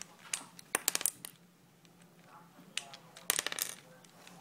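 Small hard plastic clicks and taps from prying the centre caps off a speed cube: a single click, then a quick cluster about a second in and another about three and a half seconds in.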